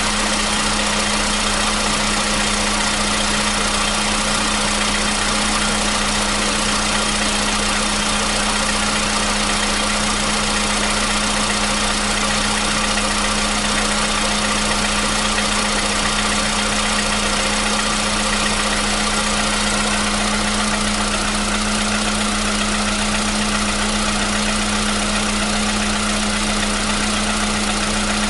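Volkswagen Polo Sedan's CFNA 1.6-litre four-cylinder petrol engine idling steadily after a cold start. No knock stands out, matching the owner's report that its usual cold-start knock has gone.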